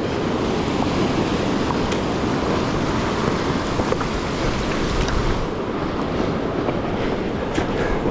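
Steady rush of a raging river running through rapids.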